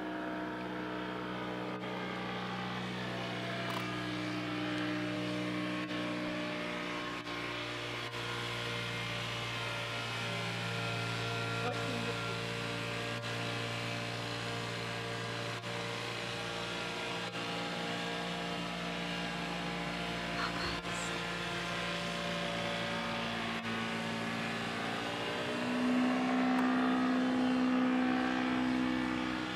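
A paramotor's engine and propeller droning as it flies low overhead, a steady hum made of several tones. Near the end it grows louder and rises in pitch.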